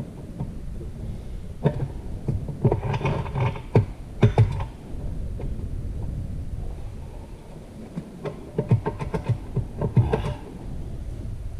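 Metal parts of an automatic transmission knocking and rattling as it is taken apart by hand, in two spells of quick clanks, one about two seconds in and another about eight seconds in, over a low steady rumble.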